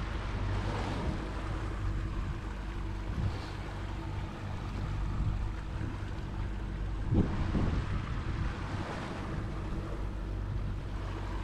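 Boat's 100 hp outboard motor running steadily at trolling speed, with wind noise on the microphone and the rush of water against the hull. A brief thump about seven seconds in.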